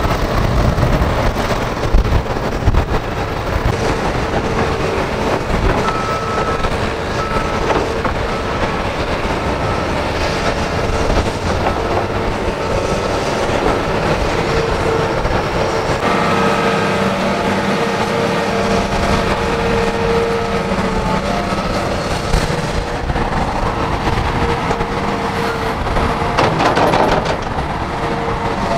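Diesel engines of crawler excavators and a loaded dump truck running under working load, with a steady whine over the engine noise and occasional knocks.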